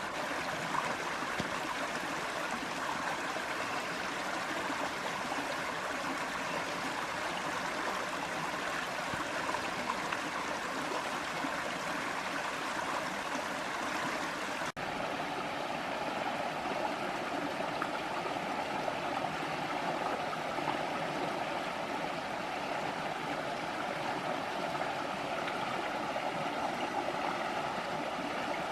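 Small creek running, a steady rush of flowing water. About halfway it drops out for an instant and comes back slightly fuller in tone.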